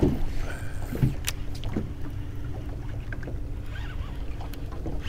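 Small aluminum jon boat sitting on open water: a steady low rumble and water moving against the hull, with a faint steady hum and a few light clicks near the start.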